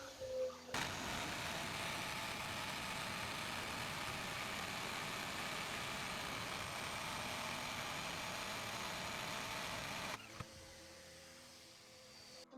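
Hammer drill with a hole saw boring through a wall, running steadily after a brief stop near the start and cutting off about ten seconds in as the hole breaks through.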